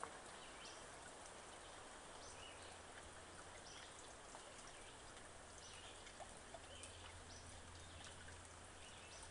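Near silence: faint woodland ambience, a steady low hiss with short high chirps recurring about every second, and a couple of faint knocks around six seconds in.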